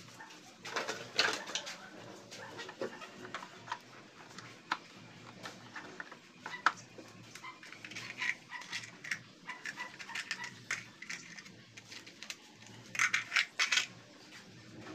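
Clinks and clicks of metal hand tools and bolts being handled while a scooter's CVT cover is fitted, with a quick run of clinks near the end.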